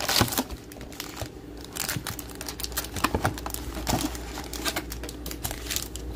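Plastic wrapping on a box of trading cards crinkling and tearing as the box is opened, an irregular run of sharp crackles and rustles.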